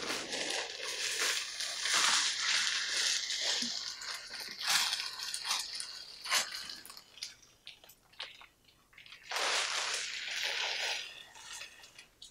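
Crinkling and rustling of a thin disposable isolation gown as it is shaken open, pulled on over the arms and tied, coming in irregular bursts. There is a lull a little past the middle, then another burst of rustling.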